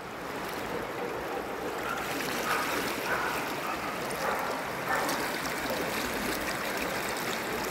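Muddy floodwater rushing past in a steady, even noise.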